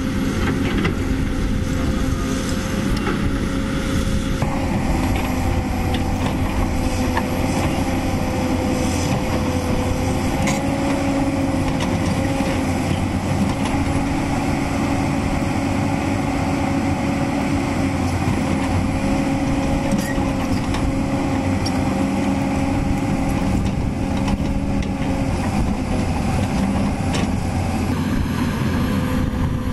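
CAT 320D tracked excavator's diesel engine running steadily while digging, a constant drone with a steady whine over it. The sound changes abruptly about four seconds in and again near the end.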